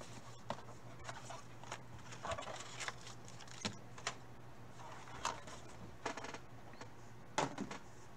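Small cardboard trading-card box being handled and opened with gloved hands: scattered faint taps, scrapes and rustles over a low steady hum.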